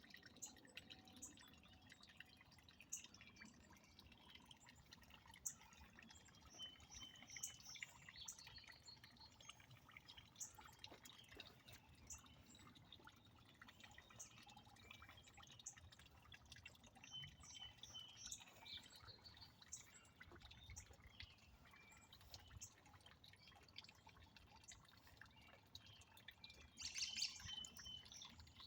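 Faint water dripping and trickling into a garden pond, with birds chirping now and then and a louder burst of chirps near the end.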